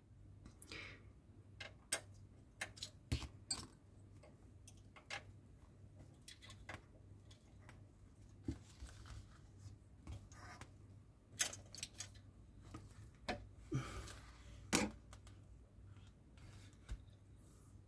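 Faint, scattered clicks and taps of a small precision screwdriver tightening screws and of the metal and plastic parts of a scale-model car frame being handled, with quiet stretches in between.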